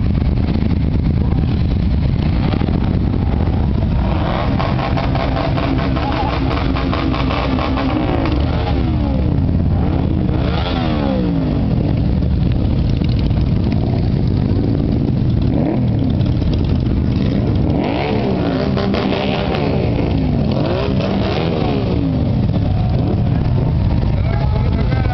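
A line of custom cruiser motorcycles riding past one after another at low speed, several engines running at once, with the pitch rising and falling as each bike goes by.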